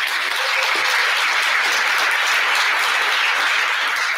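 Audience applauding steadily, welcoming the next speaker to the lectern.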